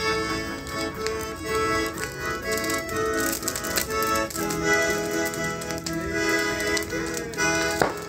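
Accordion music playing, with held notes and chords, over a bonfire; a few sharp cracks come through, the loudest just before the end.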